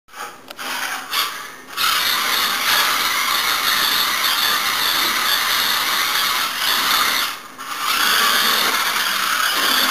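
Small electric motor and gear drive of an XMods radio-controlled toy car running, a high whir with gear noise. It comes in short spurts at first, then runs steadily, with a brief drop about seven and a half seconds in before picking up again.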